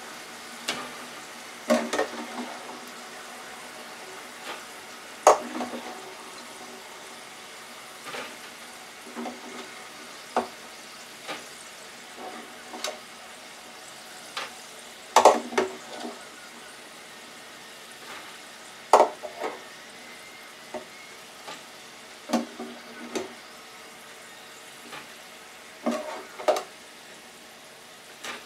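Frying oil in a small electric deep fryer sizzling steadily, with irregular sharp metal clicks and clinks as cooked French fries are lifted out with a utensil and set on a wire mesh rack.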